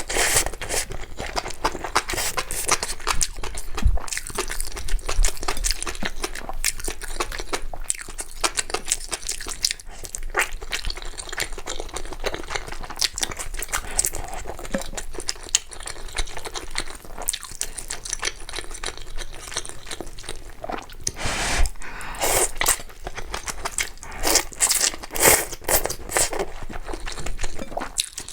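Close-miked eating sounds: chewing and crunching as a dense run of quick clicks, with a few louder bursts about three quarters of the way in.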